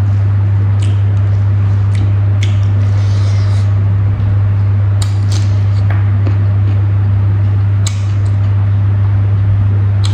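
Eating rice and boiled pork by hand: scattered soft wet clicks and smacks of chewing and of fingers working rice on a plate, over a steady low hum.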